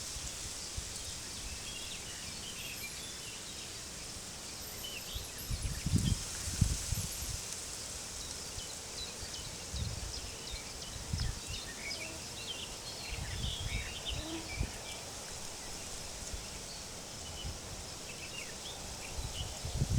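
Small birds chirping and twittering over a steady high hiss, with gusts of wind buffeting the microphone every few seconds.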